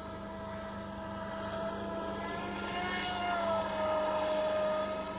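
Electric RC speedboat on a 4-cell battery running at speed: a steady motor whine whose pitch wavers slightly as it turns, growing louder about halfway through as the boat passes close.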